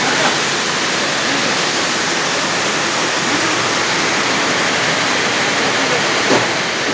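Steady, even rushing hiss, like air blowing or a fan running, that does not change, with faint voices underneath.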